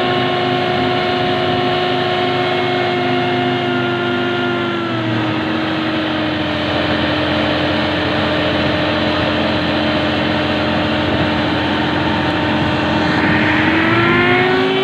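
Massey Ferguson 9500 Smart tractor's diesel engine running steadily under throttle. Its pitch drops about five seconds in, holds, and rises again near the end as the engine speeds up.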